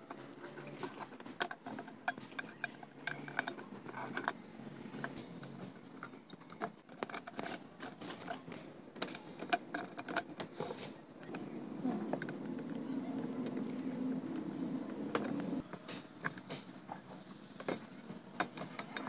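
Small metal clicks, knocks and rattles of a hurricane lantern's parts being handled and fitted together: the wire bail, the perforated globe cage and the top cap. For a few seconds past the middle, a steady low hum runs under the clicking.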